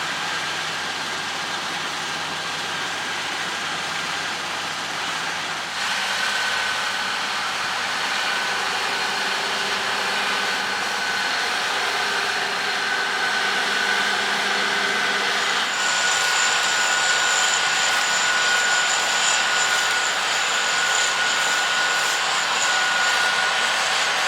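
John Deere X9 1100 combine harvester running under load while harvesting wheat: a steady mechanical drone with high, steady whines, changing abruptly in character about six seconds in and again about sixteen seconds in.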